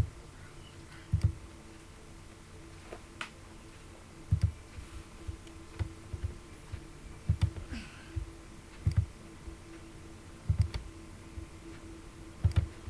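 Clicks from working a computer: short low knocks, each with a sharp tick, coming irregularly every second or two over a faint steady hum.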